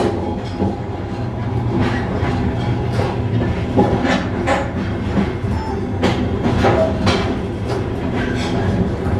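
Passenger train running on rails: a steady rumble with wheels clacking over rail joints, repeated clacks about once a second, while another passenger train passes close by on the next track.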